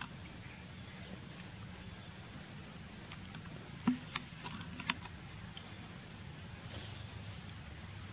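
Steady outdoor background noise with a faint, high, steady insect drone, broken by a few sharp clicks about four to five seconds in.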